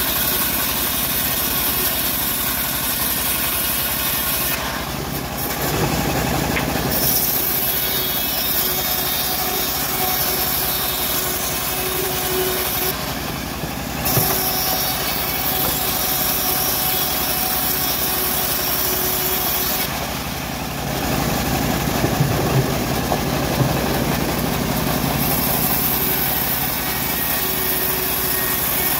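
Homemade band sawmill driven by an engine, ripping a teak log: a steady engine running under the high sawing noise of the band blade in the wood, with the high sawing sound dropping out briefly about three times.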